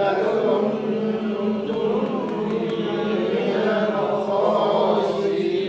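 A group of voices reciting a Quran verse together in a slow, drawn-out chant, repeating 'lakuntum minal khasirin' after the teacher.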